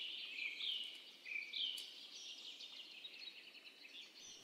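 Faint small birds chirping over a soft hiss of outdoor background ambience. The short chirps cluster in the first couple of seconds.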